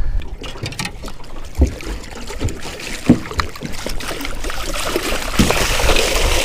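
Knocks and bumps on a small fishing boat over wind on the microphone while a thrashing banjo shark is wrestled at the boat's side, with water splashing that grows louder near the end.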